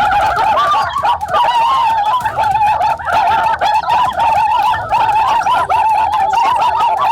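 Birds calling: a dense, steady chorus of overlapping warbling calls.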